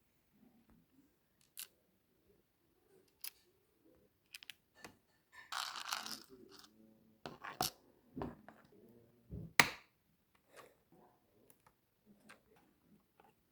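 Handling noises: scattered sharp clicks and a short scraping rustle about halfway through, with a loud click near three-quarters of the way in.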